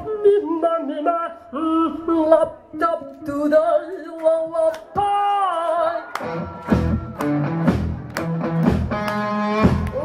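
Live band music: a single melody line with pitch bends plays alone at first, then bass and drums come in about six and a half seconds in.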